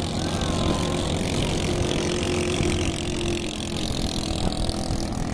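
Engines of racing bangka boats droning steadily as the boats run at speed across the water.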